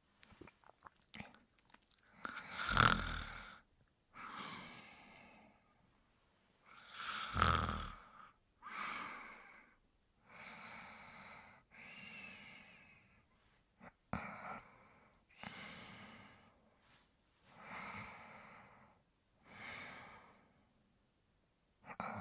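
Snoring in sleep: two deep, loud snores a few seconds apart, followed by a run of softer breaths about every second and a half.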